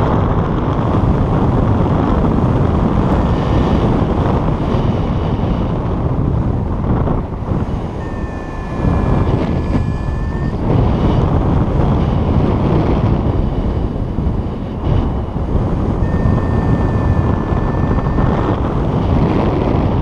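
Airflow rushing over a paraglider pilot's helmet-mounted camera microphone in flight: loud, steady wind buffeting that eases briefly twice. Two faint held high tones sound over it partway through and again near the end.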